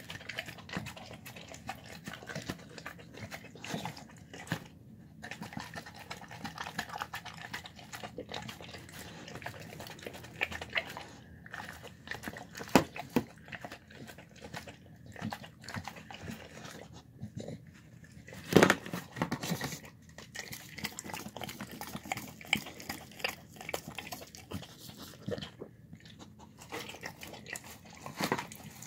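Dog eating from a plastic tub: wet chewing and crunching with many sharp clicks and knocks, the loudest about 13 and 19 seconds in.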